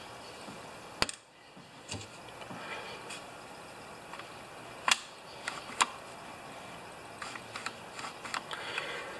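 Scattered small clicks and taps of parts being handled on a Stihl FS45 trimmer's carburetor. The sharpest come about a second in and twice around five to six seconds in, with lighter ticks between.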